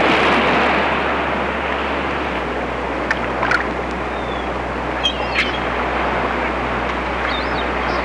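Steady loud rushing noise, like surf or running water, with a few brief high chirps about three, five and seven seconds in.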